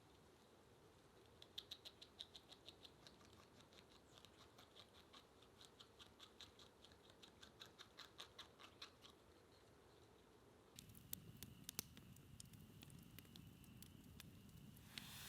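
Faint, rapid run of sharp clicks or chips, about four a second, lasting several seconds. About eleven seconds in, the sound changes abruptly to scattered sharp cracks over a low hiss, with a faint steady high tone.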